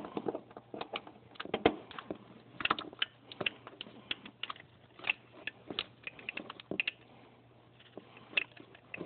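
Irregular light clicks and knocks of hands and a tool working around a distributor in a pickup's engine bay.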